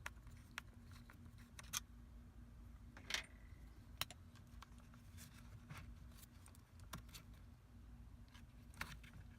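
Faint, scattered clicks and light taps of hands and a tool working the plastic parts of a Sprinter's steering column while the cruise control lever is being disconnected, over a faint steady hum.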